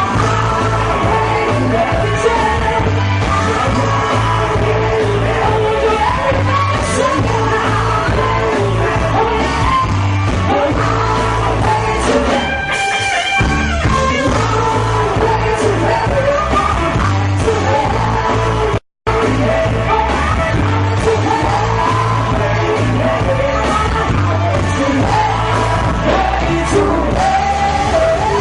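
Live rock band playing, with a singer's voice over a steady bass and drum beat. About two-thirds of the way through the sound cuts out for an instant.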